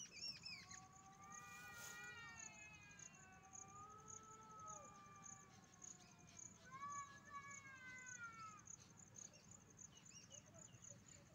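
Faint drawn-out animal calls, several long rising-and-falling cries overlapping one another, over a steady high insect chirring.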